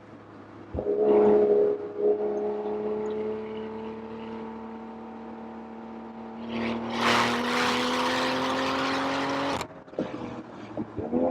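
BMW M340i's turbocharged inline-six pulling hard, its pitch rising slowly and steadily for about nine seconds, with a loud rushing noise building over it, until the throttle closes abruptly near the end.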